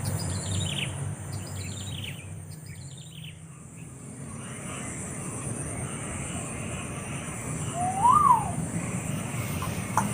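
Bird calls: a run of short, high chirps that fall in pitch, repeating about once a second and dying away after a few seconds. Then, about eight seconds in, a single louder call that rises and falls, over a steady high hiss.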